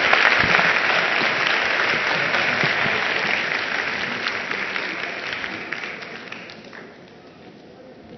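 Audience applauding, the clapping fading steadily and dying away about seven seconds in.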